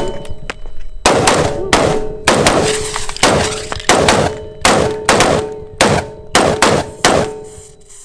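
Two AR-15-style semi-automatic rifles firing in a rapid, uneven string, about a dozen shots roughly half a second apart. A steady metallic ringing sounds under the shots.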